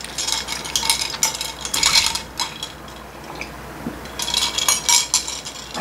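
Quick clinking and rattling inside a tall glass of green drink as it is stirred, in two bouts: one through the first two seconds and another from about four seconds in.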